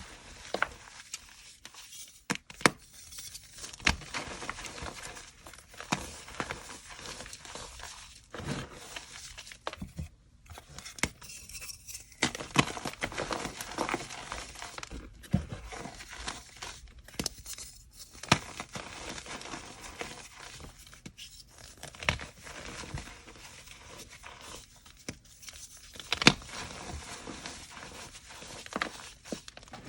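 Chalk crunching and crumbling close up: sharp snaps every few seconds over a steady gritty crackle, with a few short pauses.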